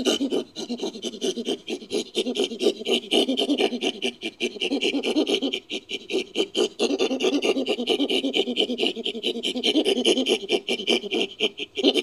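Chimpanzee sound effect made from chimpanzee recordings: a fast, continuous run of breathy panting pulses, many a second, breaking off briefly about six seconds in.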